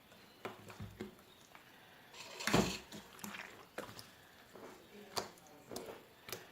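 Slime being squeezed and stretched by hand, giving irregular small clicks and pops, with one louder squelch about two and a half seconds in.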